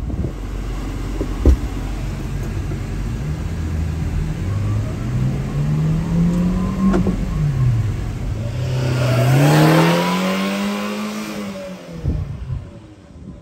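Subaru Sambar kei truck's small engine accelerating: the revs climb, drop sharply at a gear change about halfway through, and climb again as the truck passes close by. The sound then fades away near the end, and there is a single sharp knock near the start.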